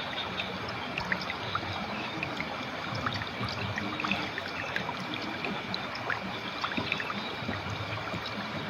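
River water flowing steadily, burbling, with many small quick plinks of water running through it.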